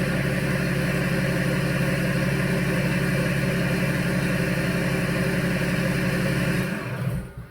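BMW M57 straight-six turbodiesel idling steadily through an exhaust with the rear silencer and DPF removed and only the catalyst left. The sound dies away near the end.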